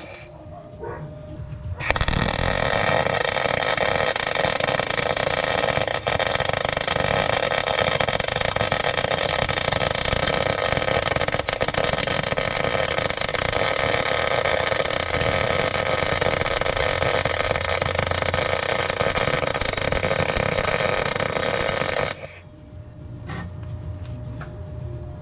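MIG welder arc crackling through one long continuous weld bead, starting about two seconds in and stopping near the end, with a faint steady hum from the welding set in the short pauses either side.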